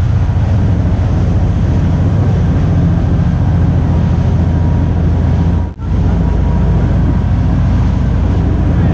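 Sportfishing boat's engines running at speed, a steady low drone with the rush of water and the wake. The sound drops out for an instant about six seconds in.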